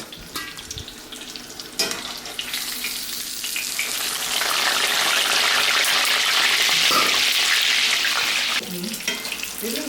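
Breaded schnitzel frying in hot oil in a pan, a steady sizzle. It starts about two seconds in, swells, and drops off sharply near the end.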